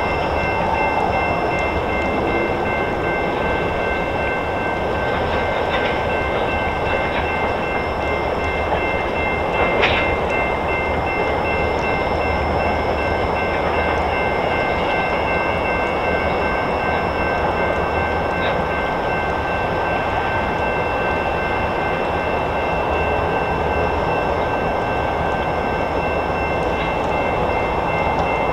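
Long freight train of loaded tank cars rolling slowly past, with a steady rumble of wheels on rail and a steady high-pitched squeal carried through. One sharp metallic clank comes about ten seconds in.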